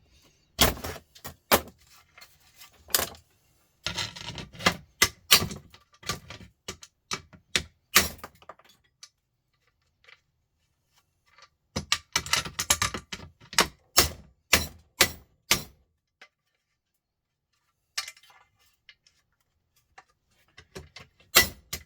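Metal parts and hand tools clicking, knocking and clattering in irregular bursts as a sandwich maker is taken apart, with quiet pauses between the bursts.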